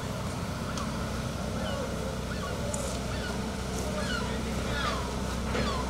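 Hitachi hydraulic excavator's diesel engine running steadily as it loads soil into a dump truck, with a few short squeals falling in pitch near the end and light ticks.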